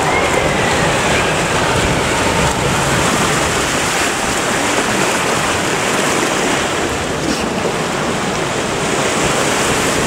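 Fast white water rushing and churning in the channel of a river rapids raft ride, a steady loud rush.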